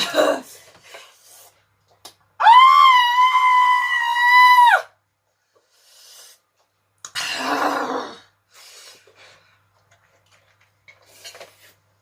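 A woman's high-pitched squeal, held at one pitch for over two seconds, as she reacts to the burn of the spicy noodles. A second, shorter noisy rush of breath follows a few seconds later.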